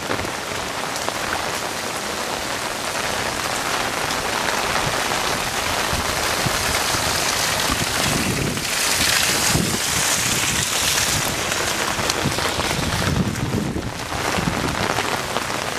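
Heavy rain falling and pattering on surfaces, a steady hiss that swells louder and brighter for a couple of seconds in the middle, with a low rumble now and then.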